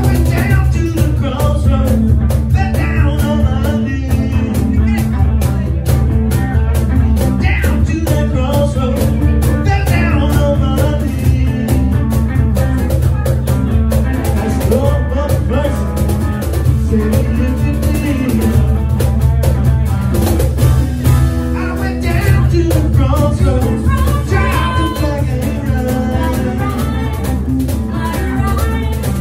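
Live blues band: a man singing into a microphone over hollow-body archtop guitar and cajón, playing continuously.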